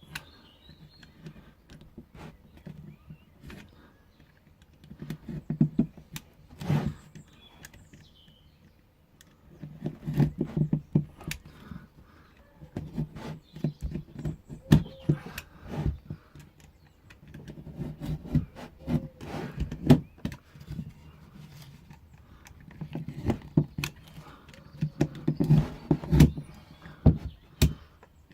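A knife and pry tools working at the glued joints of a wooden resin-casting former, in about five bouts of low grating, creaking noise with sharp clicks and knocks: the glue giving as cured polyester resin blanks are worked free.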